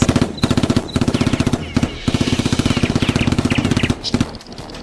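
Rapid automatic gunfire, about ten shots a second, in three bursts with short pauses between them. It stops about four seconds in after a last few shots.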